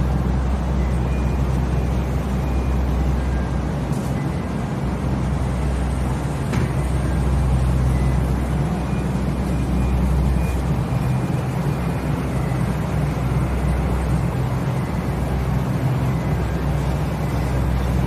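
Steady low hum of refrigeration machinery in a fruit cold store, with faint short beeps now and then.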